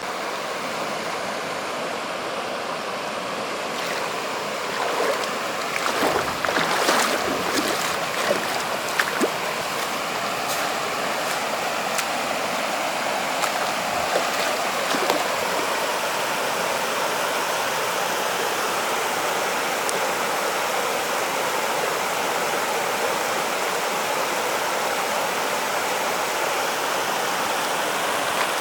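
Waterfall cascading over rocks, a steady rushing of water, with a few scattered knocks and clicks in the first half.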